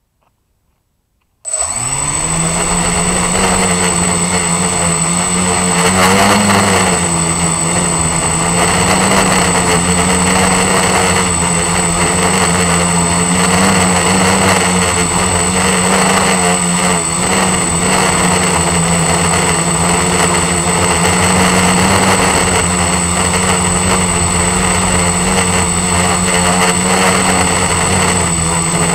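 ST360 quadcopter's motors and propellers spinning up suddenly about a second and a half in, then running in a steady drone with a constant high whine above it as it flies, heard from a camera mounted on the drone.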